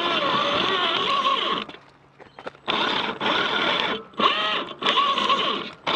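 Electric motor and plastic gear train of a 3D-printed all-wheel-drive RC rock crawler, whining as the throttle is worked. The pitch rises and falls. It runs steadily at first, stops for about a second, then comes back as four short bursts of throttle.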